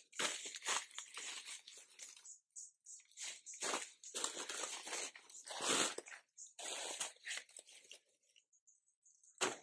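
Fresh banana leaves rustling and tearing as they are handled and cut from the plant with a knife: irregular crackling strokes that stop about eight seconds in. A single short sharp sound near the end.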